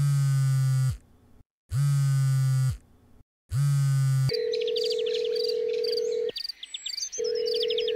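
A mobile phone on vibrate buzzing on a bed with an unanswered incoming call, three buzzes of about a second each with short gaps. Then a steady tone sounds, with birds chirping above it and a break of about a second near the end.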